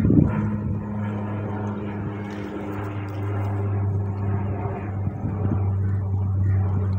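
A motor running with a steady low hum that holds one pitch, and a short thump just after the start.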